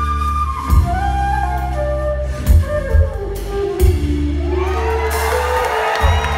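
Live blues-rock band playing an instrumental passage: a flute plays a slow melody of held notes stepping downward over bass, organ and drums. From about five seconds in, audience cheering and whoops rise over the music.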